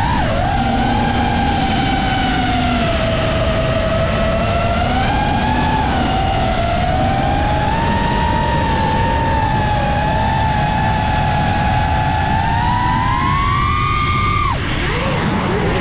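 FPV drone's motors and propellers whining, the pitch wandering up and down with the throttle. The pitch climbs steadily toward the end, then drops off sharply near the end and swoops up and down quickly after.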